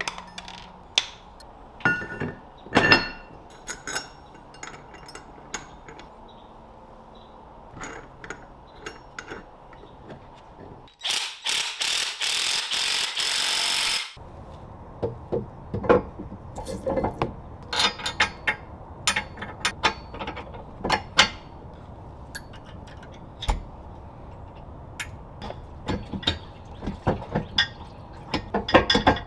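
Hand ratchet wrench clicking in short runs, with metal knocks of the trailer ball, ball mount and hitch pin being fitted together. About eleven seconds in, a loud steady rushing noise lasts about three seconds.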